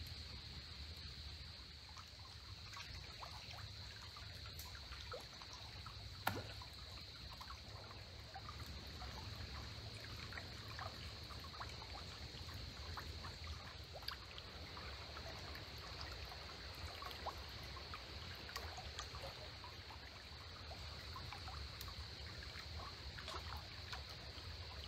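Faint trickling and lapping of a small blackwater creek flowing over snags, with many small scattered water ticks and one sharper click about six seconds in, over a steady faint high-pitched hiss.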